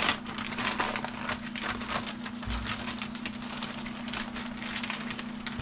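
Plastic parts bags from an RC car kit crinkling and rustling as they are handled, in a dense run of small crackles. A steady low hum runs underneath.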